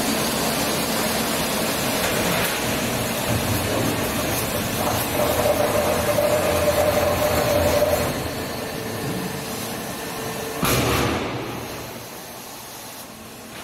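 Spindleless veneer peeling lathe running with steady mechanical noise, a faint whine for a few seconds in the middle. One sudden knock comes near the end, after which the machine noise fades down.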